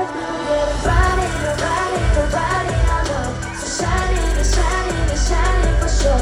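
Live pop music over a concert PA: a girl group singing over a heavy bass beat that hits about once a second.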